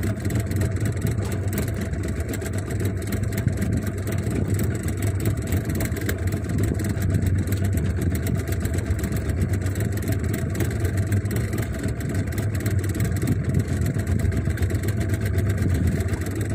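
Small boat's outboard motor running steadily at low trolling speed, an even, unchanging hum.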